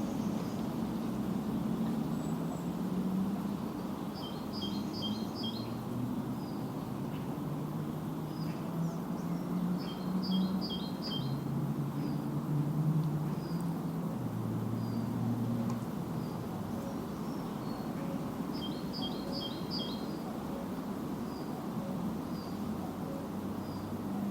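Songbirds singing: a short phrase of quick high notes recurs three times, with single high chirps between. Beneath it runs a low, shifting hum.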